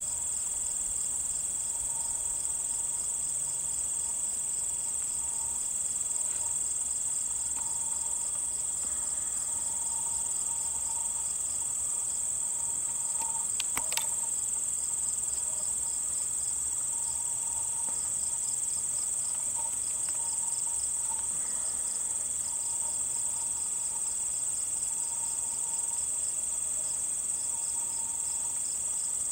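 Insects chorusing: a steady high-pitched trill with rhythmic repeating chirps layered over it. A single sharp click comes about halfway through.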